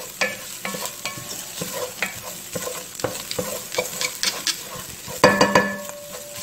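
A wooden spoon stirring and scraping diced onion, ginger and garlic as they sizzle in oil in a stainless-steel pot, in short repeated strokes against the pan. There is one louder ringing knock about five seconds in.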